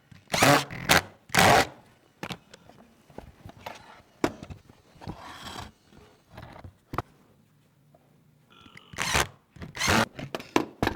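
Woodworking by hand: short, loud scraping strokes against wood, three near the start and three more near the end, with scattered light knocks and clicks in between.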